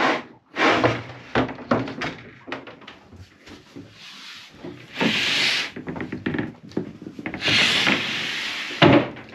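Removable wooden bulkhead panels of a Jeanneau Yachts 60's forward cabin slid along their tracks and stowed by hand: a run of knocks and clunks, two longer sliding scrapes about five seconds in and again around seven and a half seconds, and a loud knock near the end.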